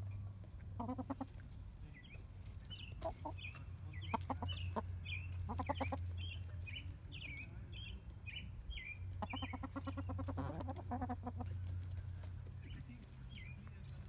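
Hens clucking in short repeated runs, with many brief high chirps in between.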